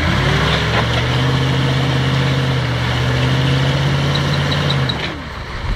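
Off-road vehicle engine revving up and holding steady revs under load for about five seconds, then easing off.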